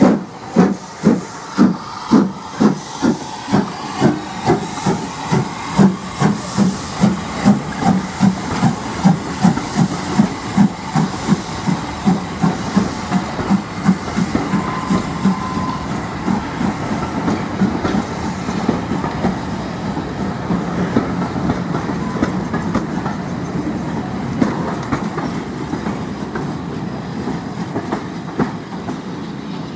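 Southern Railway steam locomotive No. 1638 pulling away from a standstill with loud exhaust chuffs. The chuffs come about two a second and quicken as it gathers speed, then give way about halfway through to the steady rumble and clatter of its carriages rolling past on the rails.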